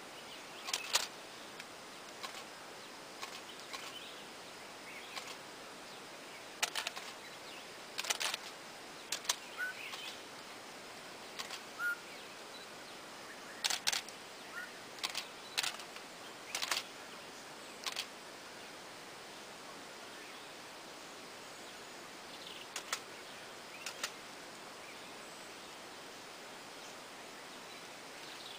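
Camera shutters clicking at irregular intervals, sometimes in quick pairs, over a steady outdoor hiss; the clicks thin out after about eighteen seconds.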